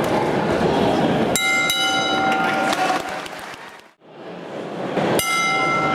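Boxing ring bell struck twice, once about a second and a half in and again near the end, each stroke ringing out and dying away over crowd noise: the end of one round and the start of the next. Between the strokes the sound fades to near silence and back.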